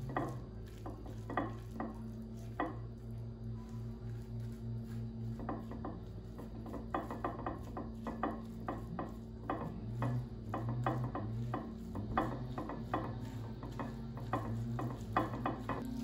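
Metal fork stirring and scraping through cooked spaghetti squash strands in the squash shell, with many light irregular clicks of the fork. A low steady hum runs underneath.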